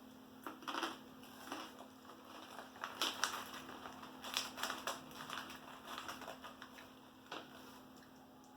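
Chewing crunchy toasted corn snacks: an irregular series of crisp crunches.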